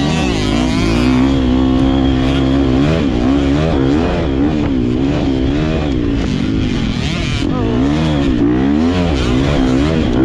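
GasGas MC250 two-stroke dirt bike engine, heard from on board, revving up and down over and over as the rider accelerates and backs off through sand.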